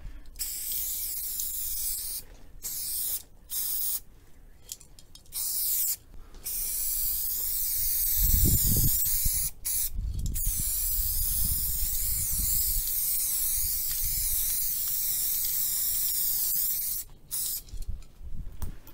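Aerosol spray paint can hissing as a graffiti tag is painted on a wall: several short bursts, then one long, nearly unbroken spray of about ten seconds. A brief low rumble comes about halfway through.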